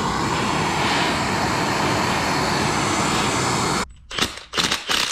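Handheld gas torch running with a steady hiss while it heats the rusted nut on a sway bar end link. It stops abruptly about four seconds in and is followed by a few short bursts of a Milwaukee 18 V cordless impact wrench working on the heated nut.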